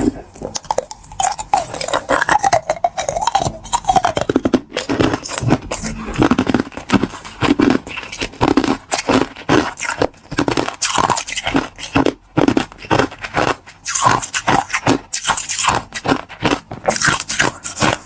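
Close-miked crunching and chewing of crystal ice: a dense, irregular run of crisp crunches, several a second, with wet mouth sounds between them.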